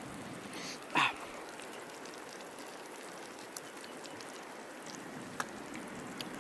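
Steady rush of flowing river water, with one short sharp sound about a second in and a few faint clicks later.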